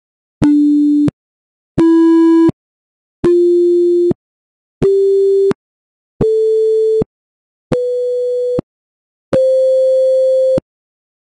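Browser-generated beeper tones from the IoT Workbench block-programming app, played one key at a time up a C major scale from D to high C (293.66 Hz to 523.25 Hz). There are seven separate steady electronic beeps with short gaps between them, each higher than the last, and the final C is held a little longer.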